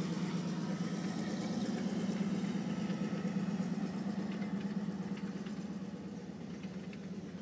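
Steady low engine drone, a little louder in the middle and easing off toward the end.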